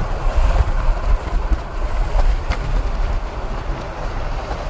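Vehicle on the move: a steady low rumble and road noise with a few faint rattles.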